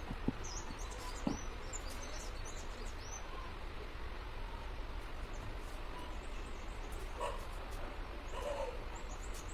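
Outdoor ambience of small birds chirping, many short high calls over a steady background hiss, with a couple of light knocks in the first second or so.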